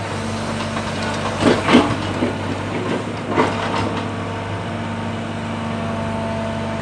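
Sumitomo excavator's diesel engine running steadily while it works, with a couple of short rough clanks and scrapes about a second and a half in and again past three seconds.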